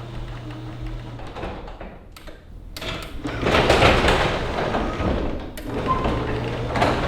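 Sectional garage door rumbling and rattling on its tracks as a Chamberlain RJO70 wall-mount opener moves it, with a loud stretch about halfway through and several sharp clicks.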